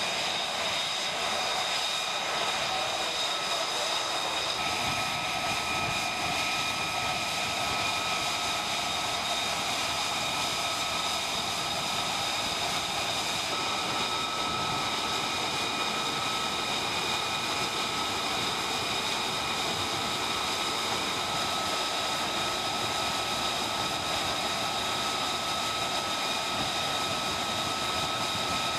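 F-35B's Pratt & Whitney F135 turbofan running steadily on the flight deck: an even jet rush with several high, steady whine tones, holding the same level throughout without spooling up.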